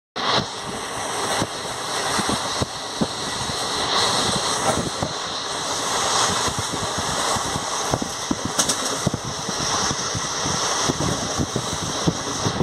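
Express passenger train running at speed, heard from inside the coach by the window: a steady rumble and rush of air with many small, irregular clicks and rattles.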